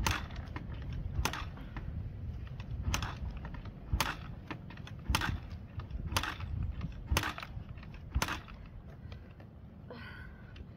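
A Yamaha TT-R125LE's four-stroke single being kick-started over and over, about one sharp clack of the kickstarter a second, eight kicks in all, without the engine firing. The engine is cold and has sat all winter.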